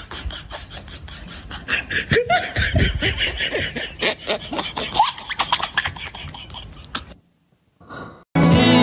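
A person laughing in quick repeated bursts. Near the end the laughter cuts off and music starts abruptly.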